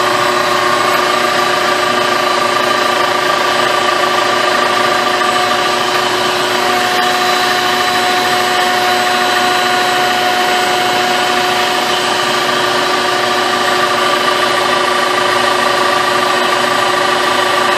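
A 2000 Toyota Camry engine idling steadily, heard from underneath the car, with its crankcase sealed so blow-by pressurizes it to push oil out of a leak. An extra steady tone joins about seven seconds in.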